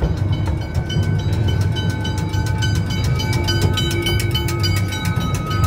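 Dreamworld Express park train's carriage rumbling along narrow-gauge track. Rapid, evenly spaced clicks and high ringing tones that come and go run over the rumble.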